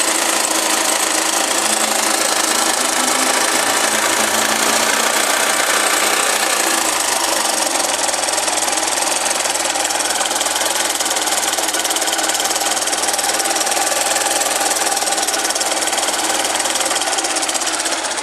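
Honda Fan 125's single-cylinder four-stroke engine running with a little throttle, a steady mechanical clatter coming from inside the engine. The noise is traced to a slack cam chain.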